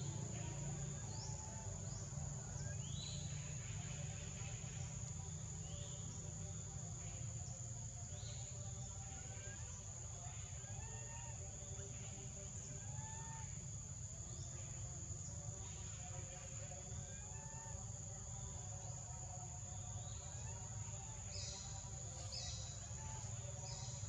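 Tropical forest ambience: a steady high-pitched insect drone, with scattered short rising chirps of birds and a low rumble underneath. A few brief, sharper chirps come near the end.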